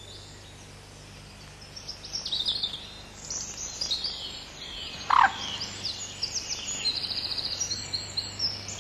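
Wild birdsong: high chirps and short trills starting about two seconds in, a quick downward-sweeping call about five seconds in and a fast even trill near the end, over a faint low steady hum.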